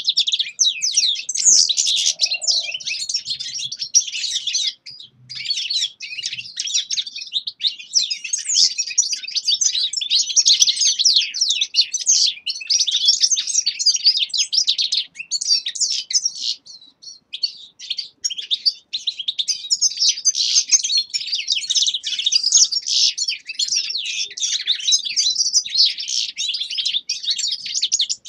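Caged finches, European goldfinches and Eurasian siskins among them, singing at once: a dense, continuous high twittering and trilling, with short lulls about five seconds in and again around seventeen seconds.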